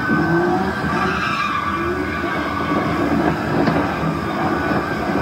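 A car's tires screeching as it spins donuts on asphalt, with its engine running under the squeal.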